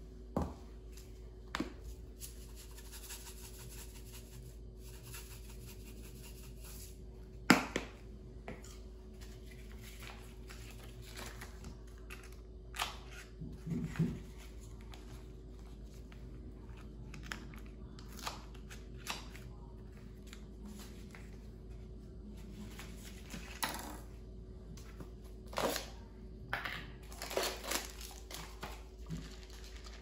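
Scattered clicks and knocks of a knife, containers and a plate on a granite countertop, with crinkling of a paper butter wrapper as butter is cut from the stick. A single sharp knock about a quarter of the way in is the loudest, and a cluster of clicks comes near the end, over a faint steady hum.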